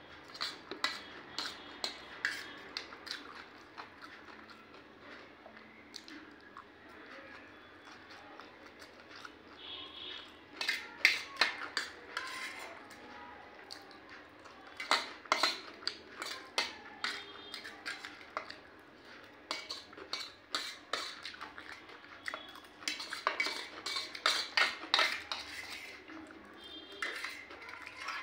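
A metal utensil clinking and scraping against a stainless steel plate while scooping up chow mein noodles, in bursts of sharp clicks separated by quieter stretches.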